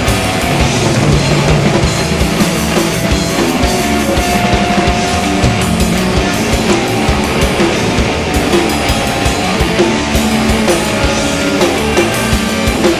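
Live progressive rock trio playing loud and dense: electric guitar, bass guitar and busy drum-kit playing, with no break.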